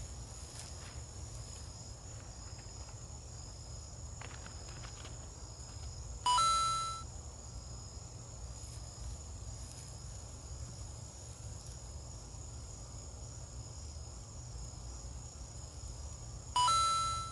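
Night insects, crickets, trilling steadily over a low hum. Twice, about six seconds in and again near the end, a loud, bright ringing tone sounds for under a second and fades.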